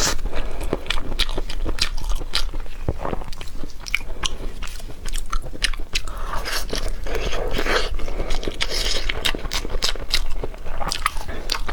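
Close-miked eating of a peeled boiled goose egg: chewing with many wet mouth clicks and smacks.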